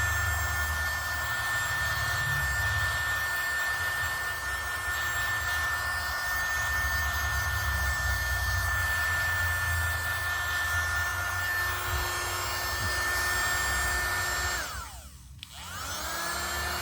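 Mini USB keyboard vacuum cleaner's small motor running, a steady high whine over the hiss of the airflow. About 15 s in it is switched off and the whine falls away as the motor winds down, then it spins back up briefly near the end.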